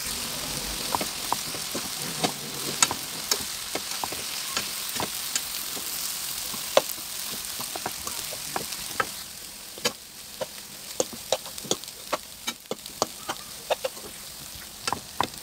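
Noodles and vegetables sizzling in a hot pan as they are stir-fried, with sharp taps and scrapes of the spatula against the pan. The sizzle eases about two thirds of the way through while the taps go on, coming more often.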